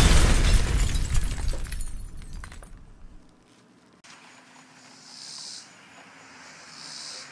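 A loud crash with a shattering, glassy crackle that fades out over about three seconds, followed by faint, quiet background.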